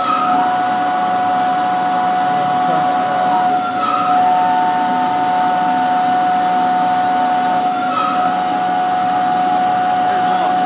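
CNC vertical machining center's end mill cutting a round metal workpiece: a steady high cutting whine over the hiss of the coolant mist spray. The whine shifts a little about every four seconds, with a short chirp each time, as the tool comes around the part.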